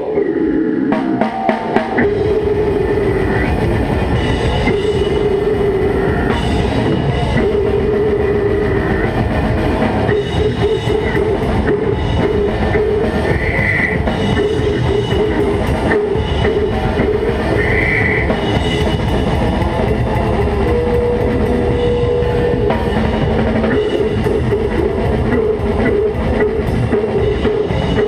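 Death metal band playing live: a drum kit beaten in dense, driving strokes under distorted electric guitars. A few separate drum hits come first, and the full band comes in about two seconds in.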